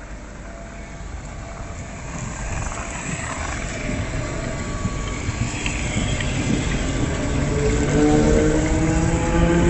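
Electric commuter train running past along the platform, its noise growing steadily louder. From about three-quarters of the way through, a whine of several tones sets in and slowly rises in pitch.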